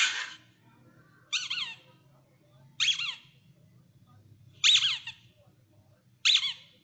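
A small dog barks once at the very start. Then a small white fluffy dog gives four short, high-pitched whines, each falling in pitch, about one and a half seconds apart.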